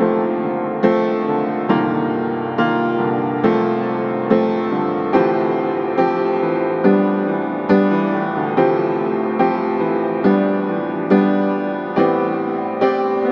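Background piano music, soft chords struck at an even pace of a little over one a second.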